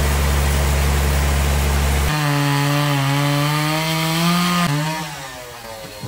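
A steady low machine hum for about two seconds, then a two-stroke chainsaw running at high revs as it cuts through a large hardwood log. Its pitch wavers slightly under load, then falls away about five seconds in.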